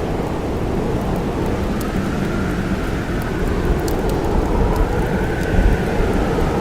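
Blizzard wind blowing steadily with a deep rumble and a faint howl that slowly rises and falls, with sparse small crackles and pops from a wood campfire.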